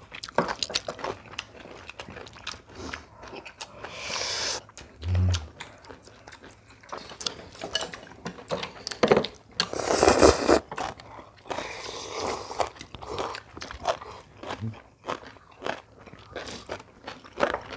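People chewing and biting food during a meal of rice and steamed squid with bean sprouts: wet chewing with crisp crunches and many small clicks, louder for a moment around four and ten seconds in.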